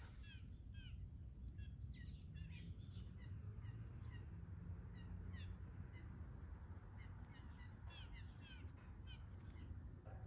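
Songbirds chirping and singing, many short repeated chirps, over a steady low rumble.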